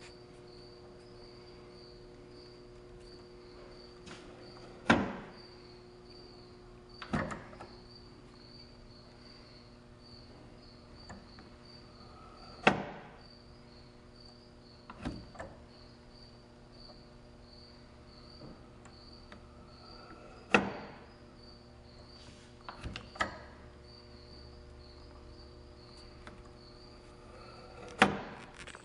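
Wooden weight-driven kinetic sculpture (Clayton Boyer's Steampunk Impulse Engine) running, its wooden mechanism giving a sharp clack about every eight seconds, each followed about two seconds later by a softer clack or double knock. A faint steady high pulsing chirp and a low hum run underneath.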